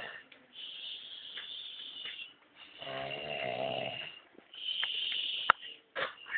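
Snoring: raspy, hissing breaths alternating with a low, rattling snore, repeating every couple of seconds. A single sharp click about five and a half seconds in.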